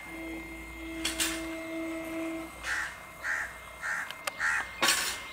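A crow cawing four times in quick succession, evenly spaced, followed by a louder harsh burst near the end. A steady low tone runs underneath through the first half.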